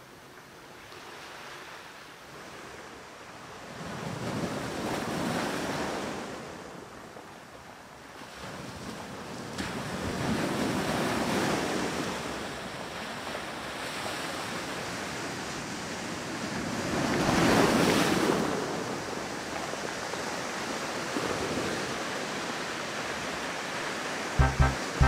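Sea surf breaking and washing up a stony shore, swelling three times, the third surge the loudest. Music with a steady beat comes in at the very end.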